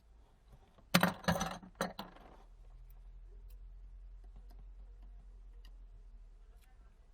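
A quick clatter of sharp clicks and rattles from small hard phone parts being handled and set down on a work surface, about a second in, followed by a faint low hum.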